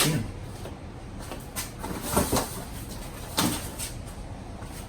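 Knocks and clunks of a ping pong table half being handled and tilted: a knock at the start, a louder, heavier clunk about two seconds in, and another knock a little over a second later.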